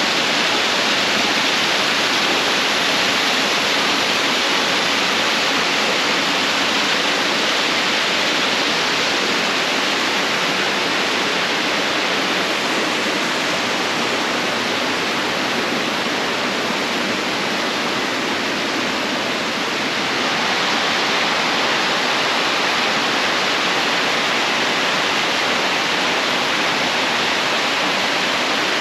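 Waterfall: a loud, steady rush of falling water with no breaks.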